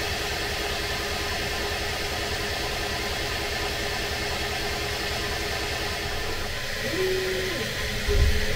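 Bambu Lab 3D printers running: a steady fan whir with motor tones that shift in pitch, and a brief low knock near the end.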